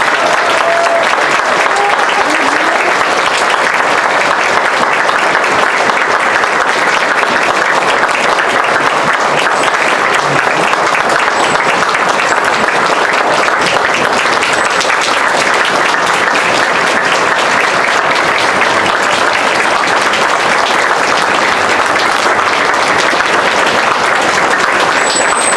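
Large outdoor crowd applauding steadily.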